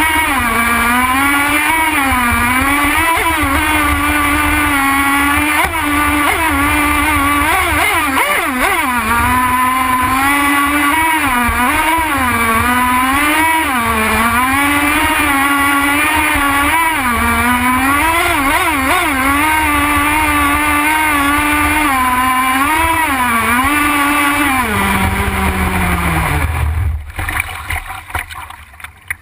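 Nitro (glow-fuel) engine of a radio-controlled model boat, heard from on board, running at speed with its pitch rising and falling over and over as the throttle is worked through turns. Near the end it winds down in pitch and cuts out about 27 seconds in.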